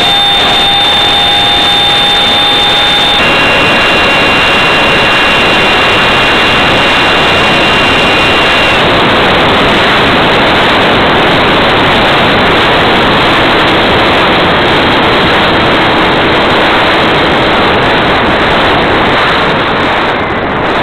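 Electric ducted fan of a Habu RC jet running at high power, heard through its onboard camera's microphone as a loud, steady rush of air and fan noise. Faint steady whine tones ride on it, shifting abruptly in pitch about three seconds in.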